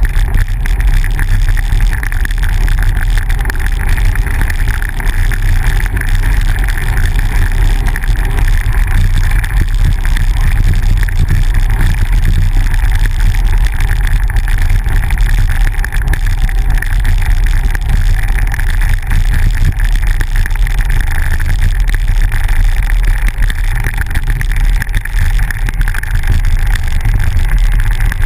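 Steady, loud road noise of a bicycle rolling along a dirt road, picked up by a camera mounted on the bike: a heavy low rumble from wind on the microphone and tyre and frame vibration, with a constant hiss above it.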